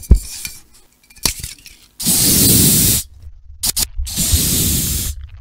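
Two loud hissing bursts, each about a second long and a second apart, after a few short clicks.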